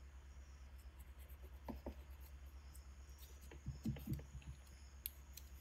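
Faint scraping and scattered light clicks of knives working a raw mutton carcass, over a steady low hum.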